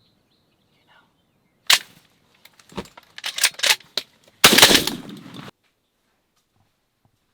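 Shotgun blast about two seconds in, followed by a run of loud cracks and knocks and then a harsher burst about a second long that cuts off suddenly.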